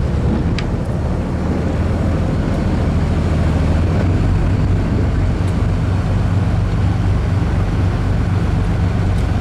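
Motorboat engine running steadily under way, a low continuous drone, with the rush of wind and churning wake water over it.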